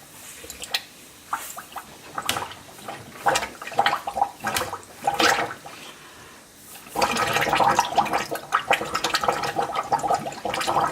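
Water spluttering and gurgling out of a dishwasher drain hose as air is blown down it by mouth, flushing out the murky water left standing in the hose. Irregular splutters at first, turning into a continuous bubbling gurgle about seven seconds in.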